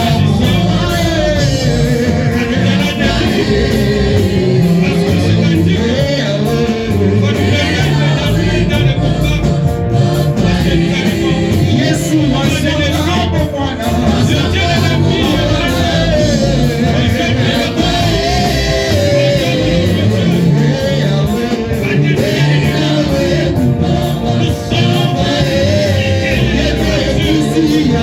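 Gospel worship music with singing voices over a steady bass beat.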